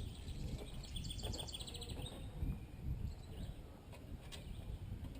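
A small songbird's rapid trill of evenly spaced high notes lasting about a second, starting about a second in, over a steady low outdoor rumble, with a few sharp knocks or clicks later on.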